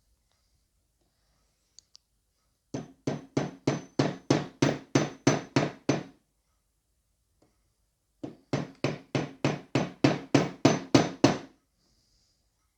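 Small hammer lightly tapping a 3D-printed plastic connector insert into place over a cable held in a vise: two runs of about a dozen quick, even taps at roughly three a second, each with a faint high ring.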